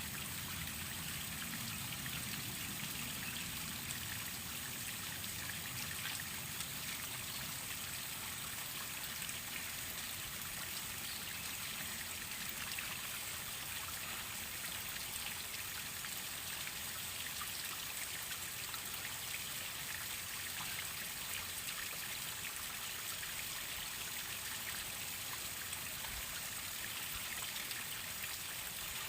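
Waterfall: a steady rush of falling water splashing, with a fine patter of droplets.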